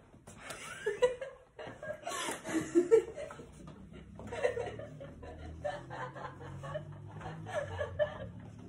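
People chuckling and laughing under their breath in short, repeated bursts.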